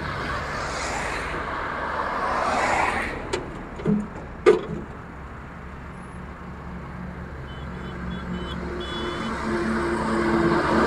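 Road traffic passing close by: a car goes past in the first three seconds, a few sharp knocks follow about four seconds in, then a truck's engine and a motorcycle grow steadily louder as they approach, with a few short high beeps near the end.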